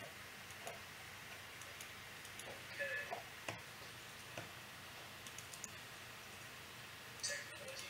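Faint, irregular clicks of a computer keyboard and mouse over low hiss, with two short, slightly louder blips about three seconds in and near the end.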